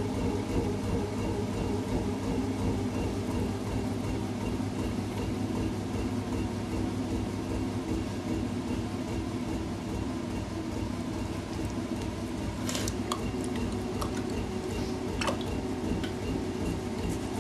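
Potter's wheel running with a steady motor hum and an even, fast low rumble while clay is thrown on it. A few sharp clicks come in near the end.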